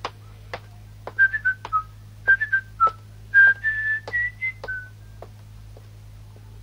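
A man whistling a short tune of brief notes, from about a second in until near the five-second mark, over light footsteps on wooden boards about twice a second.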